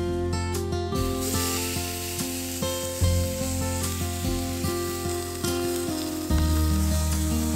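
Ground-beef patties sizzling in a cast-iron skillet on a propane camp stove, starting about a second in, under acoustic guitar background music.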